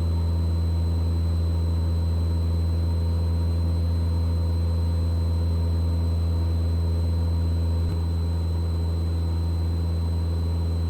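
Mooney M20E's four-cylinder Lycoming engine and propeller droning steadily under climb power, heard from inside the cockpit as an even, unchanging hum.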